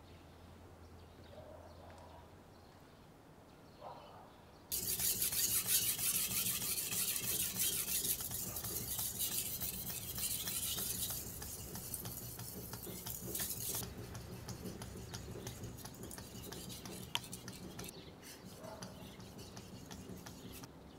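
Steel kitchen knife blade being sharpened by hand on a wet waterstone: quick back-and-forth strokes of steel scraping across the stone. The strokes start suddenly about five seconds in and are louder at first, then softer.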